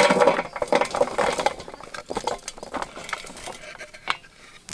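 Sliced green bell pepper strips dropping into a large metal pan of cut peppers: a burst of soft pattering taps that thins out over a second or two into scattered taps, with one sharper tap near the end.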